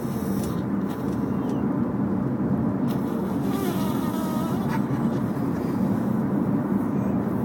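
Steady road and engine noise inside a moving car, with a few faint, short squeaky calls about halfway through.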